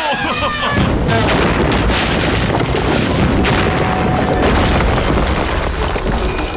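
Animated stone walls toppling and crashing down, a heavy rumble of falling blocks that starts about a second in and lasts several seconds, over background music.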